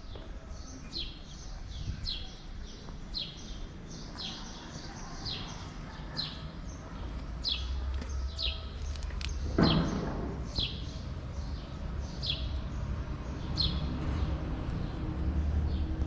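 A small bird chirping over and over, a short falling note about once a second, over a low rumble, with a single thump about ten seconds in.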